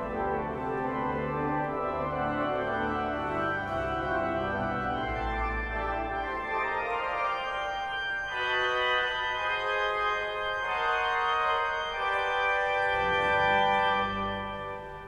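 Cathedral pipe organ playing slow, sustained chords over low pedal notes. The chords change about eight and again about twelve seconds in, and the bass drops out between those changes. The music fades away near the end.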